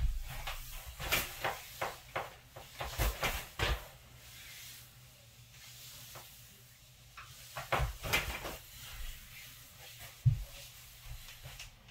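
Movement noises of a person posing in high heels and silk pyjamas, stepping, turning and sitting on a leather futon: scattered short rustles and knocks in a burst during the first four seconds and again around eight seconds in, with one low thump about ten seconds in.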